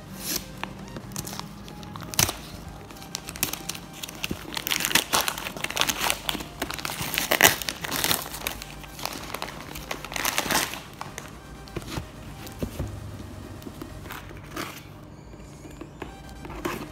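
Parcel wrapping and packing tape crinkling and tearing as they are pulled off a cardboard box by hand, in bursts of crackly rustling that are busiest in the middle. Background music runs underneath.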